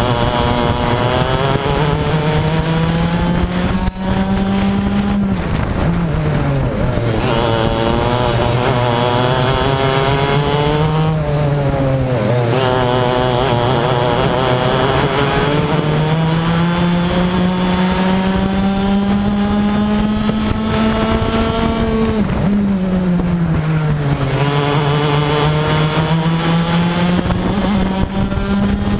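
Racing kart's two-stroke engine heard from on board at full race pace, its note climbing steadily along the straights and dropping sharply off the throttle into corners, about four times over.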